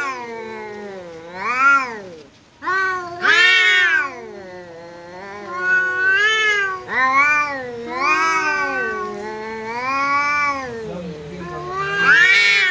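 Two domestic cats yowling at each other in a territorial standoff: long, wavering howls that rise and fall in pitch almost without a break, with louder swells every few seconds.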